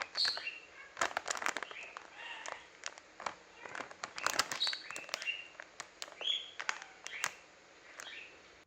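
Cockatiel giving short, repeated chirps, mixed with many sharp clicks and taps.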